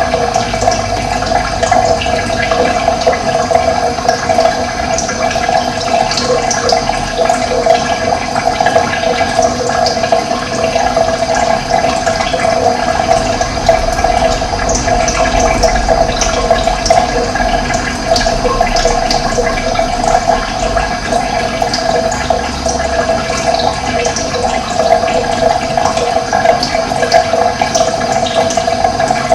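Running water: a steady, even rush of flowing water, with brief high chirps of birds scattered through it.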